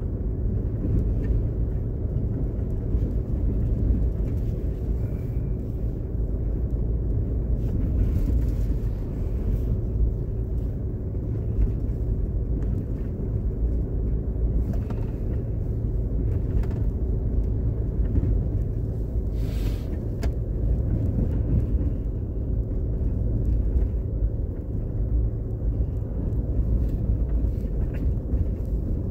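Car driving along a paved road: a steady low rumble of engine and tyre noise, with a faint steady hum over it.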